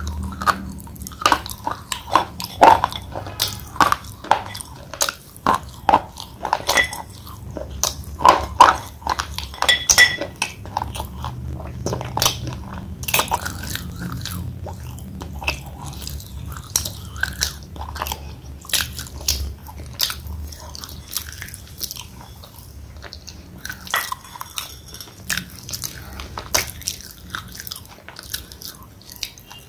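A thick slate pencil being bitten and chewed: sharp, irregular crunches and crackles, coming thick and fast in the first half and more spaced out later.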